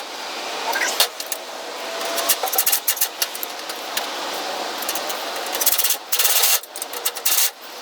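Metal hardware and hand tools clinking and rattling with scattered sharp clicks, as parts are assembled. Two brief harsh bursts come near the end.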